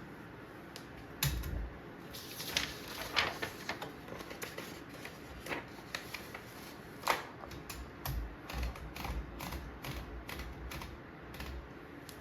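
Typewriter keys being struck at an irregular typing pace: sharp clacks, the strongest about a second in and about seven seconds in, some with a low thud from the machine's body.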